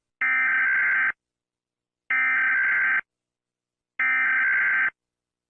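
Emergency Alert System SAME header: three bursts of digital data tones, each about a second long with about a second of silence between them. This is the coded header that opens an EAS alert.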